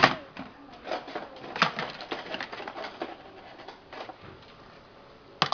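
Dishes and the dishwasher rack clinking and knocking now and then as a baby handles them, with a few soft baby vocal sounds between.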